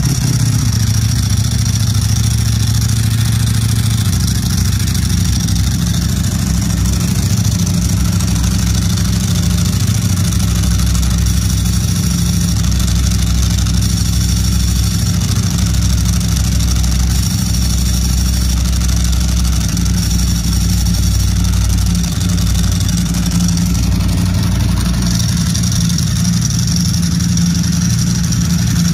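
Ducati Streetfighter V4 SP's 1103 cc V4 engine idling steadily just after start-up, its exhaust note mixed with the rattle of its aftermarket STM dry clutch.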